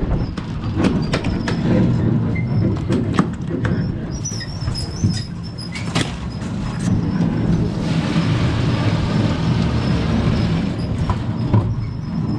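Steady low rumble of a boat at sea in choppy conditions, with a run of sharp clicks and knocks as a fish is unhooked and a plastic fish ice box lid is handled. A rushing hiss rises about eight seconds in and fades a few seconds later.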